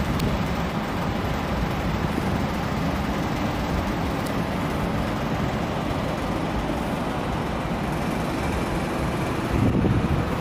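Wind blowing across the microphone in a steady rush, gusting louder near the end.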